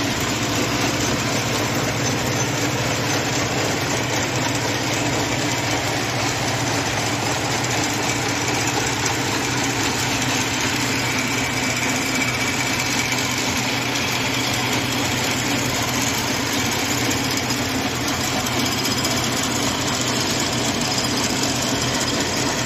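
Needle loom weaving narrow tape, running steadily with a fast, even mechanical clatter over a constant motor hum.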